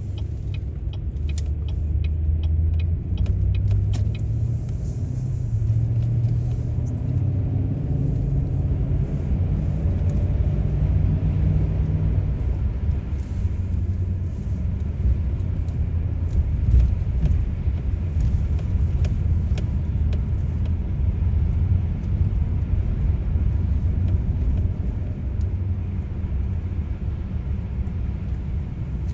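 Motor vehicle driving, with a steady low rumble of engine and road noise. The engine note rises for a few seconds near the middle, and a few light clicks come in the first seconds.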